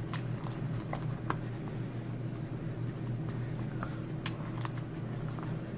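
Plastic spoon stirring thickening glue slime in a plastic tub, with scattered small scrapes and clicks against the tub, over a steady low hum.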